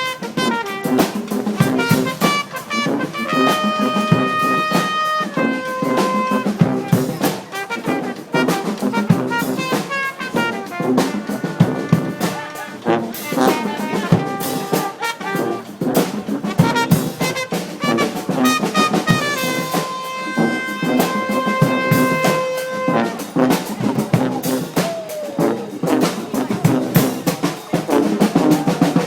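Brass marching band playing live: trumpets and trombones over a busy drum beat, with long held brass notes about three seconds in and again about twenty seconds in.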